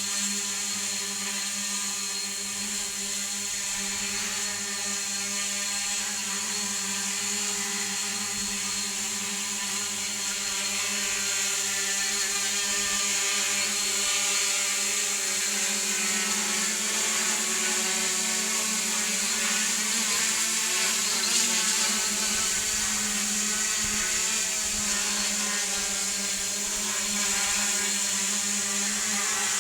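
Electric motors and propellers of a home-built multirotor drone whirring steadily in flight, the pitch wavering a little about halfway through.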